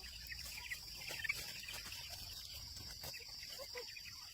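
A steady, high insect drone with faint, scattered bird chirps.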